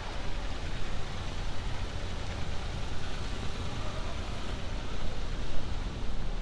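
Steady city street traffic noise on wet roads: a low rumble under an even hiss.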